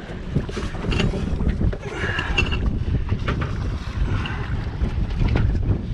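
Strong wind buffeting the microphone as a steady low rumble, over water noise around a small fishing boat riding at anchor.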